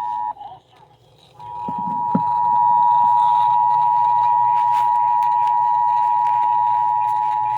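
NOAA Weather Radio warning alarm tone, a steady single-pitched beep of about 1050 Hz, heard over a radio receiver. It starts about a second and a half in and holds, signalling that a warning follows. A brief tone cuts off at the very start, and a few soft knocks come just after the alarm begins.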